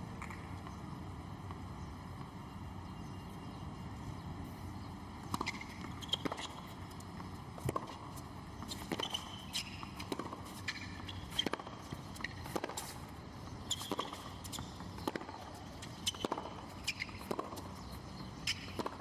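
Tennis rally on a hard court: the ball cracking off the rackets and bouncing, sharp strikes coming roughly once a second from about five seconds in, over a steady background hum.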